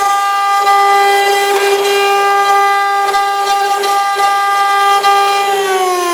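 CNC engraving machine's spindle motor whining at a steady high pitch. Near the end the pitch starts falling steadily as the spindle spins down after the power is cut.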